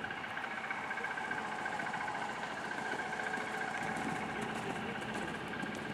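A steady mechanical hum with a few steady whining tones, like an engine idling.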